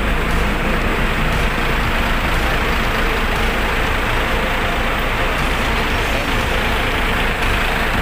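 Buses idling: the steady, unbroken drone of diesel coach engines.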